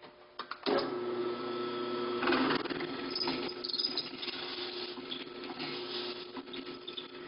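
Drill press motor starting under a second in and running steadily, while a pen barrel trimmer mounted in it cuts the end of a hand-held pen blank down to its brass tube, with rougher cutting noise in the first few seconds.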